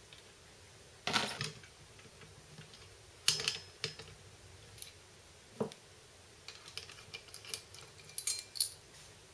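Metal clicks and clatters of a small engine's clutch and housing being handled and taken off by hand. A few separate knocks in the first half and a run of light ticking clinks near the end.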